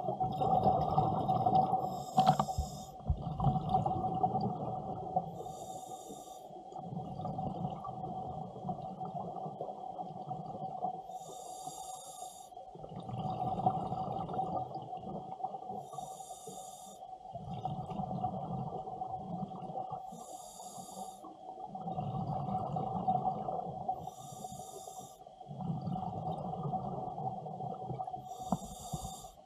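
Scuba diver breathing through a regulator underwater: a short hiss of inhalation about every four seconds, each followed by a longer low rumble of exhaled bubbles, over a steady hum.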